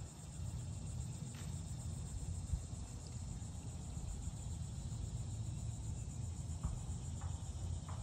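Steady high insect drone over a low rumble of wind, with a few faint short chirps near the start and in the last couple of seconds.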